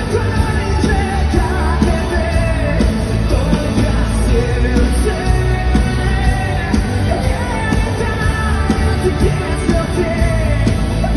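Live rock-pop band performance with a singing voice over heavy, steady bass and drums, loud throughout.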